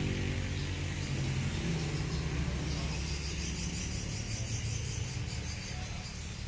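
A motor vehicle's engine running with a low, steady rumble that slowly fades. Faint high chirping joins about halfway through.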